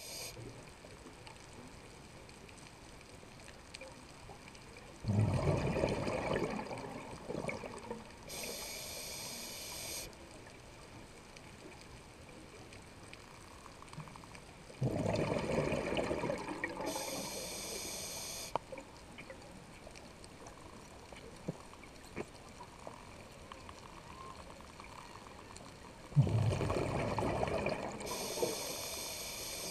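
A scuba diver's breathing through a regulator underwater: three bursts of exhaled bubbles, each a couple of seconds long, each followed a few seconds later by the hiss of the next breath drawn in, about one breath every ten seconds.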